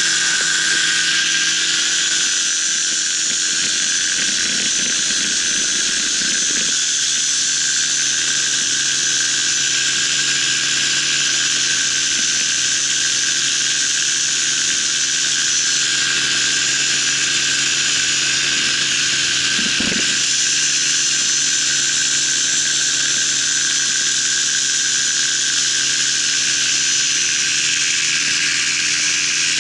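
Paramotor trike's engine and propeller running steadily at one high pitch in flight, with wind rushing over the microphone.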